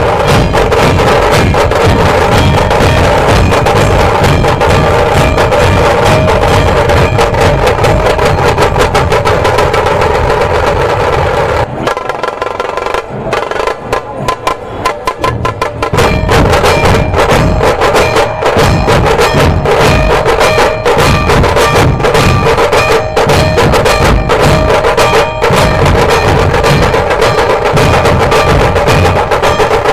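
Dhol-tasha ensemble playing: large barrel-shaped dhols beaten together with tasha drums struck with thin sticks, in a loud, fast, driving rhythm. In the middle the deep dhol strokes drop out for about four seconds, leaving only sharper strokes, before the full group comes back in.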